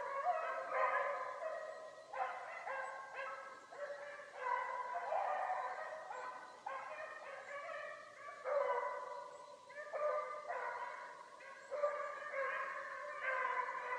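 A pack of beagles baying in chorus while running a swamp rabbit's trail, several dogs giving tongue at once in overlapping calls of different pitch.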